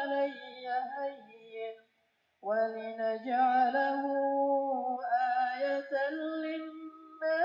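Background music with a singing voice holding and gliding between long notes, breaking off for about half a second around two seconds in.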